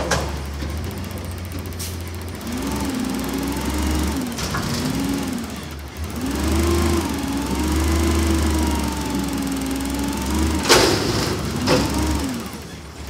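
Peterbilt 320 front-loader garbage truck's natural-gas engine revving up and down to drive the hydraulics as the forks lift a dumpster up over the cab, its pitch rising and falling repeatedly. A loud metallic bang near the end, with a smaller one just after.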